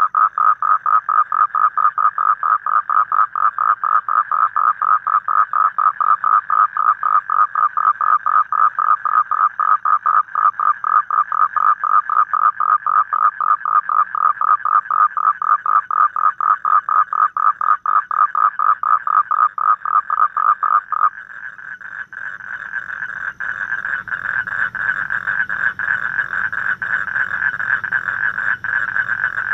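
A toad calling in a long, even series of rapid pulsed croaks. About 21 seconds in, the calling stops abruptly and a denser, slightly higher continuous trilling chorus takes over.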